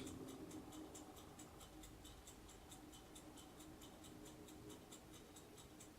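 Near silence: room tone with a faint, rapid, evenly spaced ticking, about four or five ticks a second, and a faint steady hum.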